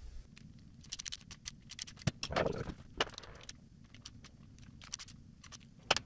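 Scattered light metallic clicks and taps from a hand tool working the cam holder bolts on a CBR 1000 cylinder head. They bunch together about a second in and again about three seconds in, with a few single clicks later.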